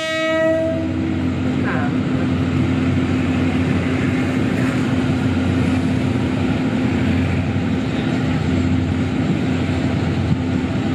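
The tail of a train horn cuts off in the first second. A diesel locomotive's engine then runs with a steady, even drone and a constant low hum.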